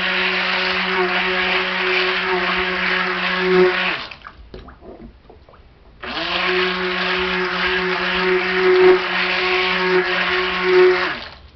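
Electric stick blender mixing soap batter in a tall cup, run in two bursts of about four and five seconds with a short pause between; the motor's steady hum drops in pitch as it winds down at the end of each burst.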